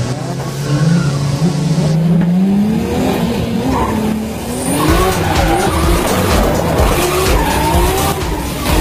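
A drifting car's engine revving in rising pulls while the tyres squeal and skid, heard from inside the car.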